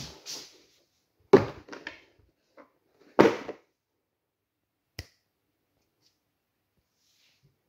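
Two loud knocks with a brief rattle, about a second and about three seconds in, and a single sharp tap near five seconds: a board game's cardboard box, board and cards being handled and set down on a table.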